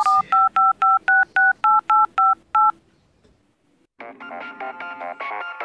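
Phone keypad dialing tones: about a dozen short two-note beeps in quick succession as a number is dialed. After a short pause, a tune starts about four seconds in.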